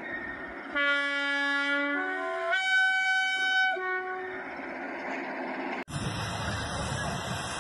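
Train horn sounding a long low note, then a higher note. After a sudden cut about six seconds in, a steady rushing hiss follows.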